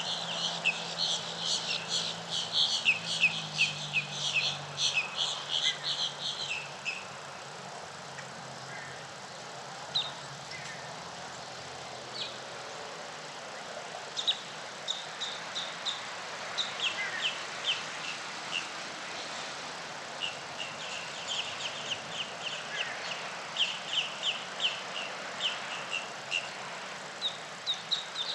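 Small birds chirping in fast, repeated runs of high notes, dense in the first seven seconds and again over the second half, with a few single chirps between. A faint low hum sounds in the first few seconds over a steady background hiss.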